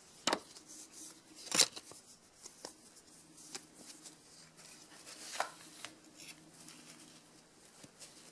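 Handling noises from a small wooden coin presentation crate and its paper certificate, moved by gloved hands as the foam pad is lifted out: a series of sharp taps and rustles, the loudest about a second and a half in.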